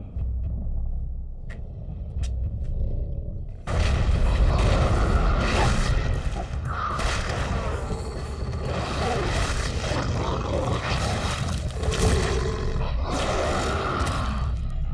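Designed monster sound effect for a giant mutant rabbit-like creature: a low rumble, then about four seconds in a sudden loud, harsh roar that goes on as several long shrieking cries.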